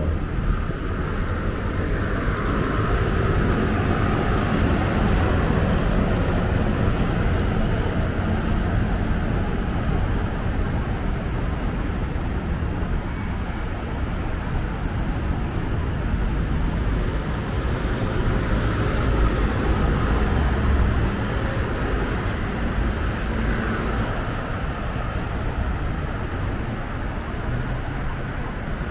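Road traffic passing: a steady rumble of car engines and tyres that swells as vehicles go by, loudest a few seconds in and again past the middle.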